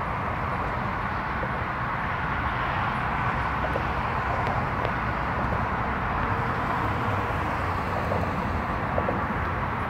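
Steady roadside vehicle noise, a low rumble with a hiss over it, from engines and traffic around a police stop.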